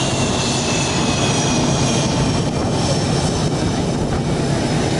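CF-18 Hornet's twin turbofan jet engines running as it taxis: a high whine that falls slightly in pitch and fades over the first couple of seconds, over a steady low engine rumble.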